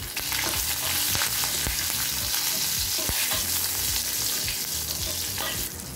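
Ghee and oil sizzling in a stainless steel pan as a South Indian tempering (tadka) fries: mustard seeds, cumin, urad dal, curry leaves and green and dried red chillies, stirred with a wooden spatula. The sizzle is steady, with a few light clicks.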